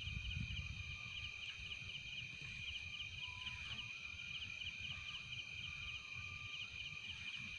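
Night insects, crickets, chirping: a steady high trill with a rhythmic pulsed chirp over it, and a faint low rumble underneath.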